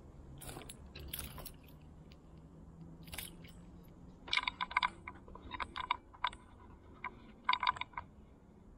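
Handling of a spinning rod and reel with a small perch hanging on the line. Soft rustling for about the first second and a half, then, from about four seconds in, short bursts of sharp, tinny clicks.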